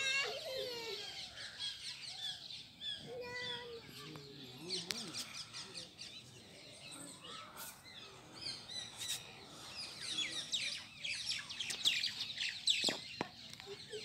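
Many small birds chirping and calling together, the calls growing busier and denser in the last few seconds, with a couple of sharp clicks near the end.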